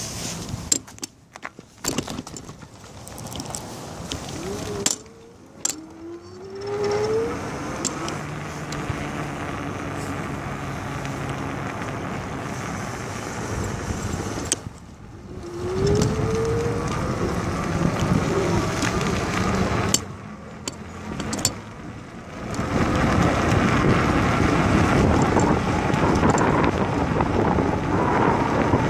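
Bicycle ride recorded from the moving bike: a steady rush of rolling and wind noise on the microphone, with a few sharp clicks near the start and two short rising whines. About three quarters of the way through the noise grows louder and stays up.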